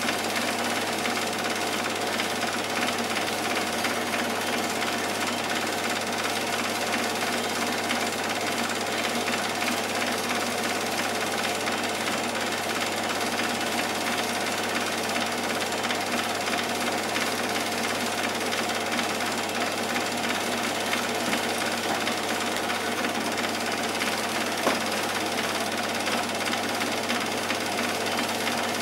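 Cine film projector running: the steady, rapid clatter of its film mechanism, with a low hum underneath.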